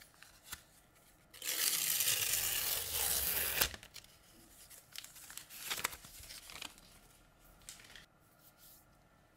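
Protective paper wrap being torn and peeled off a new Google Pixel 9 Pro XL. It makes one loud continuous tearing sound lasting about two seconds, then lighter scattered rustling and crinkling as the last of the wrap comes away.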